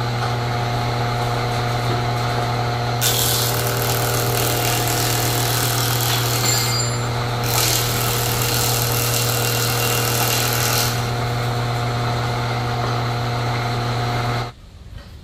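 Large wood planer running with a steady motor hum; twice its blades cut into a wooden board pushed across the table, each pass adding a harsh, high-pitched hiss for about three and a half seconds. The sound cuts off suddenly near the end.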